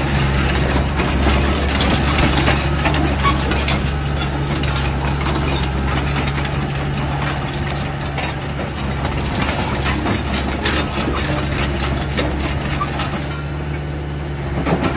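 Hitachi mini excavator's diesel engine running steadily as it works its boom and bucket, with many sharp clicks and rattles over the engine hum.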